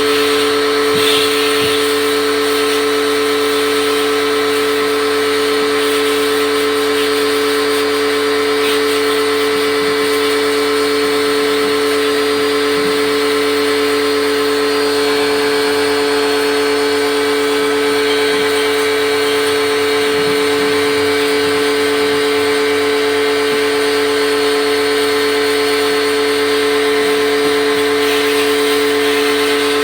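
A motor-driven machine running steadily, with a constant whine over a hiss.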